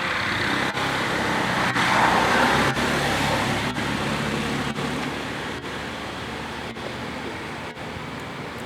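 Steady rushing noise like passing road traffic, swelling louder about two seconds in and then easing off.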